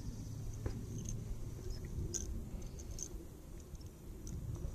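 Faint, scattered clicks and rustles of a skirted fishing jig lure being handled and picked over by hand, over a steady low rumble.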